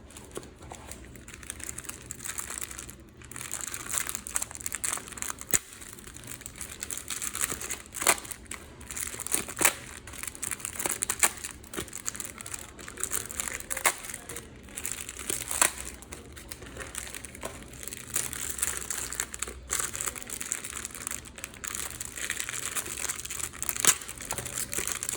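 Foil trading-card packet wrappers crinkling and crackling as packs are handled and opened, with many sharp crackles throughout.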